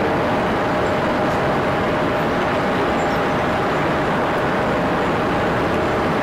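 Boeing 747-8F's four GEnx-2B jet engines running at taxi power: a steady rumble with two faint, steady whining tones.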